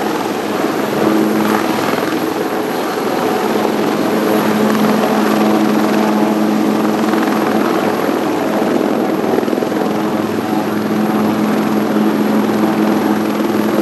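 Sikorsky S-76D helicopter with its twin turboshaft engines, hovering low and descending to land: loud, steady rotor and turbine noise over a constant droning hum.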